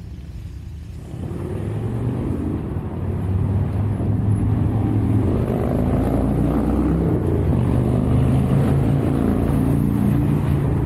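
A motor vehicle's engine running with a steady low hum, getting louder about a second in and again a few seconds later, then holding steady.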